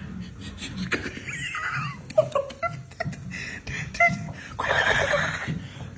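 Stifled, muffled laughter and snickering.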